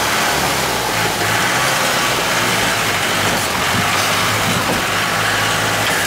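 Off-road jeep's engine running steadily, heard from inside the cab, with an even hiss over it.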